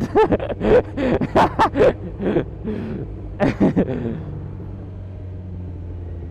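Sportbike engine running steadily at low revs while filtering through slow traffic, a low even hum. A man's voice, not made out as words, sounds over it for about the first four seconds.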